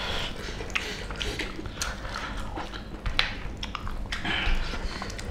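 People eating curried mutton and pork with rice by hand: wet chewing and lip-smacking with many short clicks and scrapes of fingers on the plates.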